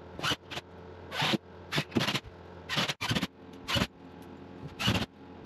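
Cordless DeWalt driver sinking screws into a drywall sheet: about ten short bursts of the motor, each a fraction of a second, with brief pauses between them.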